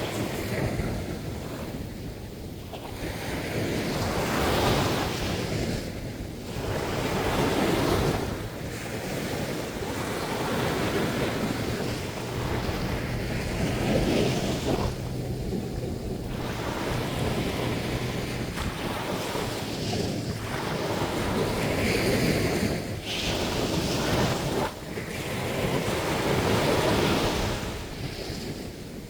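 Sea waves breaking and washing up on the shore, the surf swelling and easing every few seconds.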